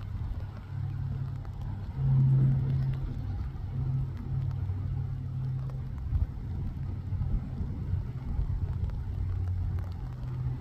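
Low, steady engine rumble from a vehicle out of sight, swelling briefly about two seconds in.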